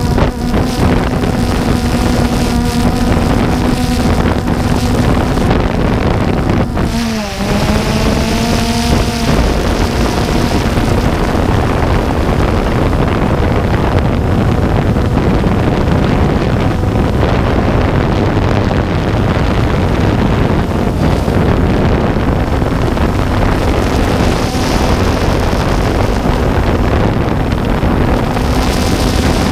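DJI Phantom 2 quadcopter's motors and propellers buzzing steadily, recorded by the camera riding on the drone, with wind rushing over the microphone. About seven seconds in, the buzz dips sharply in pitch and climbs back as the motors change speed in flight.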